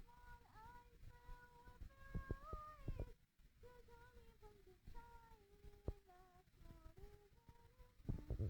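A person humming softly in long held notes. The pitch rises briefly about two seconds in and steps down in the second half, over scattered faint knocks.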